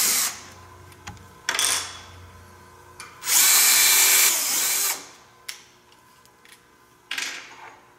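Cordless drill whirring as it bores a pilot hole into the end of a wooden handrail. It runs in several separate spurts, the longest and loudest about a second and a half in the middle, with light clicks between.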